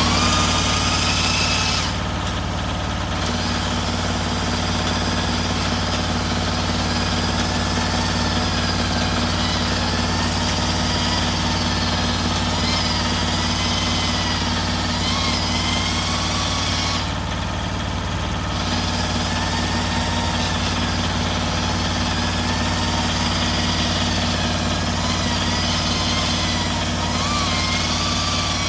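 Cylinder honing machine running steadily in a diesel engine bore: a constant motor hum under a hissing, wavering high-pitched squeal of the hone working the cylinder wall. The high squeal and hiss drop out briefly twice, about two seconds in and again about seventeen seconds in.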